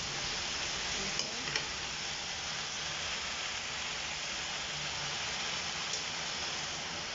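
Pork and vegetables sizzling in a wok while a metal spatula stirs them, with a few light clicks of the spatula against the pan about a second and a half in and again near the end.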